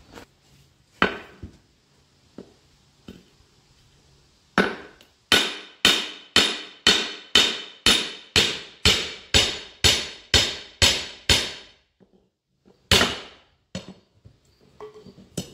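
Hammer blows on a Firestone RH-5 split-rim steel truck wheel, breaking the wheel loose from the tire bead. A couple of single strikes, then a run of about a dozen steady blows, about two a second, each ringing briefly, then one last blow near the end.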